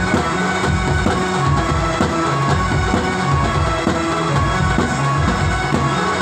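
Loud band music: a keyboard melody over heavy drums with a steady beat.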